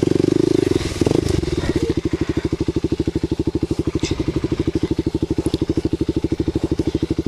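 Kawasaki KLX250 dual-sport motorcycle's single-cylinder four-stroke engine running on throttle for about the first second, then dropping to a steady idle with an even beat while the bike sits stopped in the mud.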